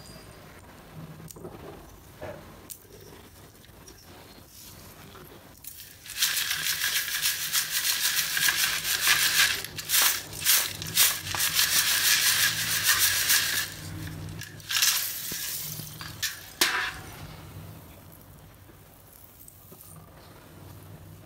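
Brittle flakes of roasted multani mitti (fuller's earth) poured into a steel sieve, making a dense, crackly clatter that lasts about seven seconds. A few shorter rattles follow, with quieter handling sounds before and after.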